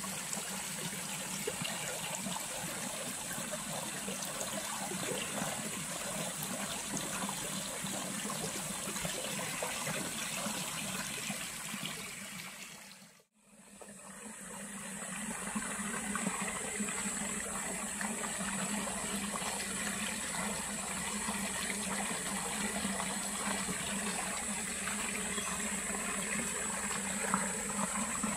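Shallow forest stream trickling and splashing over stones and leaf litter in a steady rush. About thirteen seconds in, the sound drops out briefly and fades back up.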